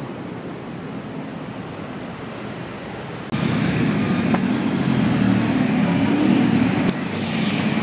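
City street traffic noise: a steady, quieter rumble at first, then after a sudden jump about three seconds in, louder traffic with motor scooters and cars passing close by on the road.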